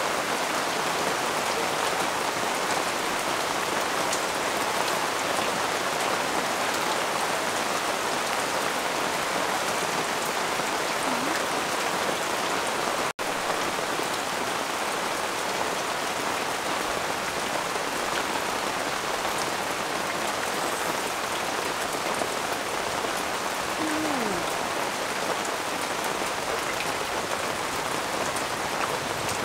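A steady, even rain-like hiss, cutting out for an instant about 13 seconds in.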